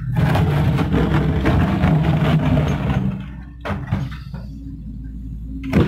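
Diesel engine of a Doosan DX140W wheeled excavator working under load, with dirt and rocks crunching and scraping as the bucket digs. The noise drops for a moment past the middle, with a couple of knocks, and is loud again near the end.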